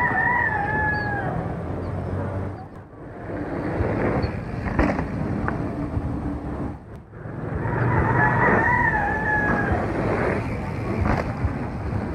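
A rooster crowing twice, once at the start and again about eight seconds in, each crow a drawn-out call of about a second and a half, falling slightly in pitch at its end, over a constant rough background noise.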